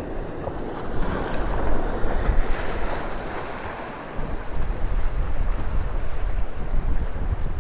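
Ocean surf washing onto the beach, with wind buffeting the microphone and making a low rumble.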